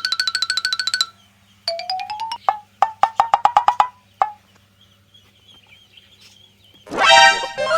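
Edited-in cartoon sound effects: a fast run of pitched clicks, then rising blips and a quick series of pitched beeps, and near the end a loud burst with several falling whistle tones.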